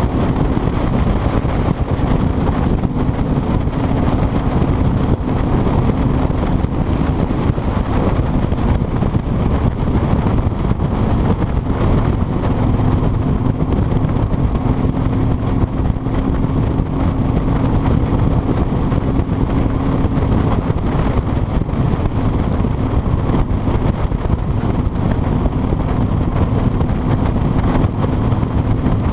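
Kawasaki Vulcan 2000's 2-litre V-twin engine running steadily as the motorcycle cruises along, mixed with wind rushing over the chest-mounted microphone and road noise.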